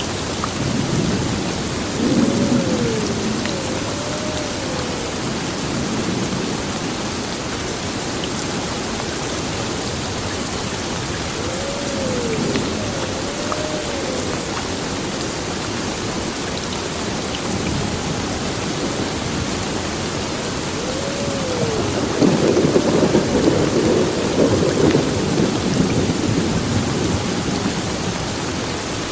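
Heavy rain pouring steadily onto a building, with rolling thunder rumbling about two seconds in and again, louder, near the end.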